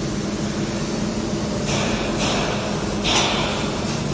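Han's Yueming WIND6025 12 kW fiber laser cutting machine running with a steady hum while its cutting head cuts sheet metal, giving short hissing bursts: two brief hisses a little before two seconds in and a louder one about three seconds in.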